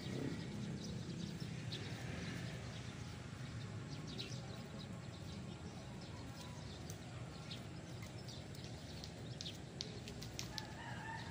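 Outdoor ambience: a steady low rumble with many short, high ticks and chirps scattered through it, and a brief pitched call near the end.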